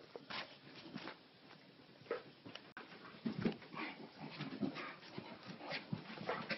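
Maltese and bulldog play-fighting: a run of short, irregular dog noises and scuffles, busier from about three seconds in.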